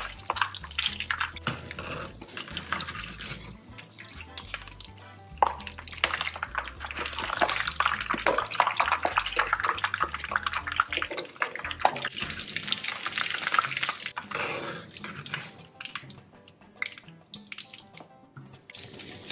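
Egg-dipped bread slices deep-frying in hot oil in a stainless steel pan, a steady sizzling and crackling with one sharp knock about five seconds in. The sizzle dies down over the last few seconds.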